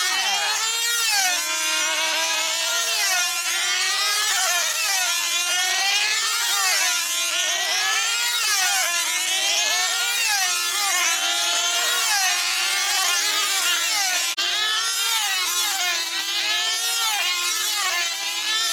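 Several F2C team-racing control-line model aircraft with 2.5 cc diesel engines running flat out together, a high whine from each. The pitch rises and falls about every second and a half as they circle past.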